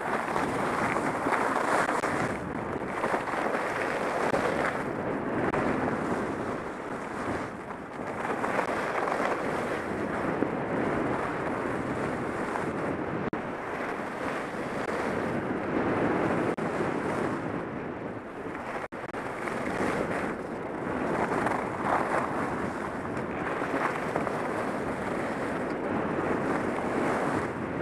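Wind rushing over the camera's microphone during a fast downhill ski run, mixed with telemark skis hissing and scraping over groomed snow. The rushing noise swells and eases every few seconds.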